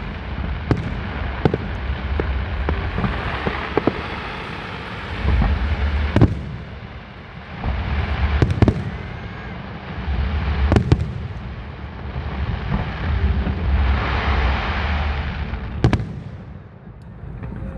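Aerial firework shells bursting in a display, sharp bangs every second or two with a low rumbling echo between them. There are stretches of dense crackling twice.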